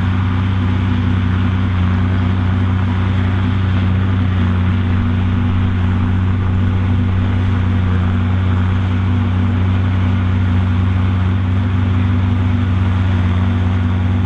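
Ford tractor engine under steady load driving a PTO-driven Kemper forage harvester chopping maize, with a second tractor running alongside: a continuous deep engine drone over the rushing of the harvester's chopper and blower.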